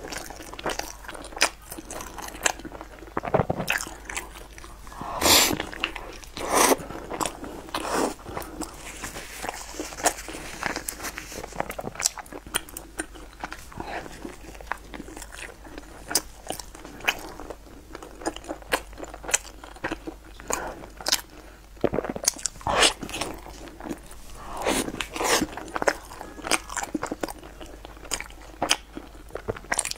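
Close-up eating sounds: biting into and chewing a crusty baked bun dipped in white cream, with irregular crisp crunches and wet mouth sounds, the loudest bites about five seconds in and again after about twenty-three seconds.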